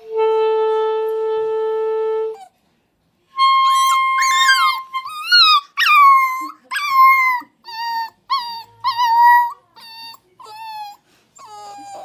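A clarinet holds one long note for about two seconds. After a short pause, a puppy cries along in a string of about a dozen short, wavering howls, each bending in pitch, the first of them over another held clarinet note.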